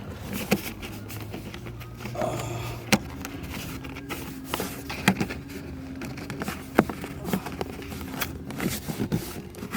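Irregular clicks, taps and rustling as hands tuck wiring under a plastic interior trim panel.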